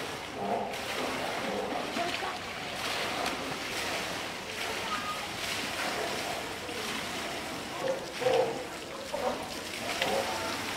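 Water sloshing and splashing as a polar bear moves through its pool and climbs out, dripping, with people talking in the background.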